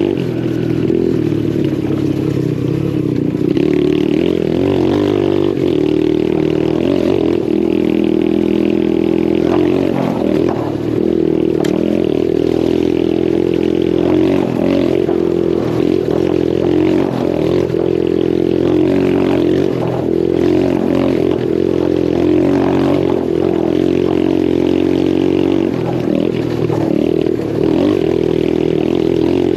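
Lifan 125 single-cylinder four-stroke engine of a pit bike running while being ridden, its revs rising and falling.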